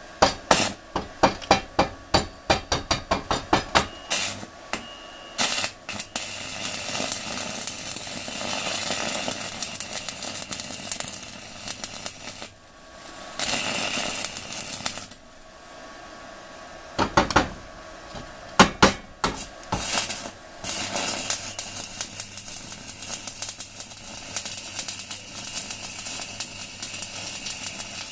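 Stick (MMA) welding with a 4 mm UONI basic electrode at 160 A from an inverter welder: the arc's dense crackling sizzle. It is broken near the start and again about two-thirds of the way through by runs of sharp metallic taps and short stops.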